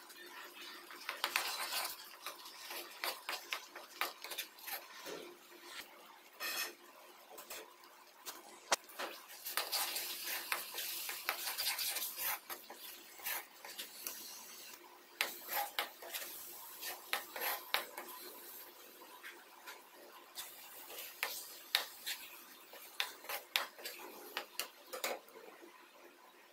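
Steel ladle scraping and clinking against a non-stick pan while stirring a thick mango barfi mixture, in irregular strokes with longer runs of scraping.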